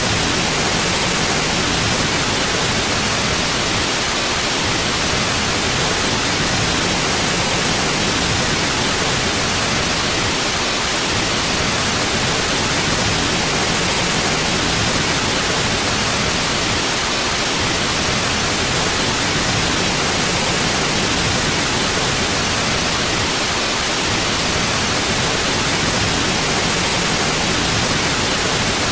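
Steady synthetic white noise: an even hiss across the whole range up to about 10 kHz, unchanging throughout.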